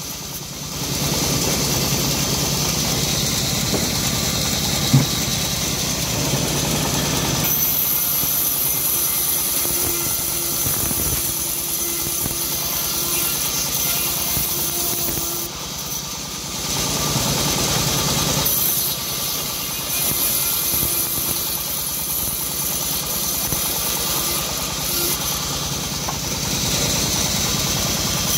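Homemade band sawmill running steadily, its blade ripping hard jowar wood into boards; the hiss of the cut comes in over the machine's drone in two long passes. A single sharp knock sounds about five seconds in.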